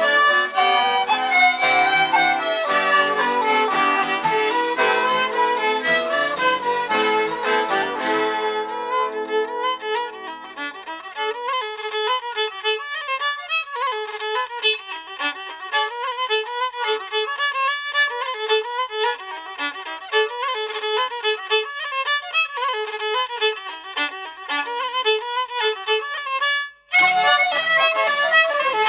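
Irish traditional band playing a fast instrumental dance tune with the fiddle leading. About eight seconds in, the bass and accompaniment drop away, leaving a lighter texture with the fiddle melody to the fore. Near the end there is a brief break and the full band comes back in.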